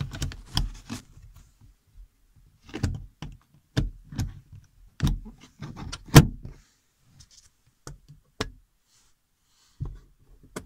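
Plastic clicks, knocks and rustling as the interior dome light's plastic lens is worked back into its roof housing, with one sharp snap about six seconds in as a clip catches. A few separate lighter clicks follow near the end.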